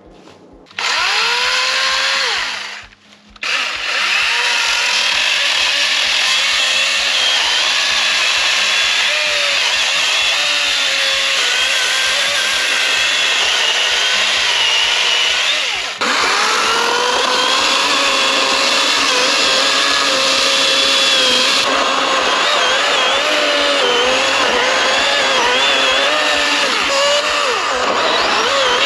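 Greenworks Pro 80V battery-powered chainsaw cutting wood. Its electric motor whines up about a second in, stops briefly, then runs on under load with its pitch wavering, dipping for a moment about halfway.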